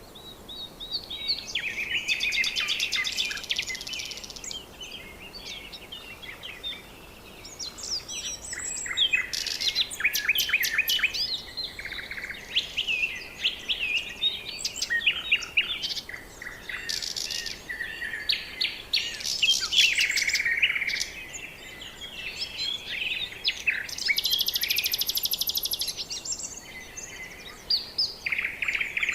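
Several birds calling and singing at once: a busy chorus of overlapping chirps, whistles and buzzy trills with no pause.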